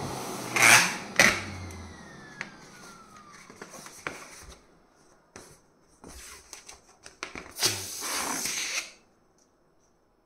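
An electric balloon pump's motor winds down, its hum falling in pitch. About a second in come two loud, sharp snaps, then a thin falling rubber squeak and light handling noise of a stretched latex modelling balloon. Near the end a sharp bang with a second and a half of rushing noise as the balloon bursts, leaving it in shreds.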